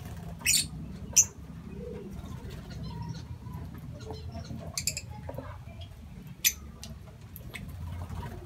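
Lovebirds giving a few short, shrill chirps, scattered singly over several seconds, above a low steady background hum.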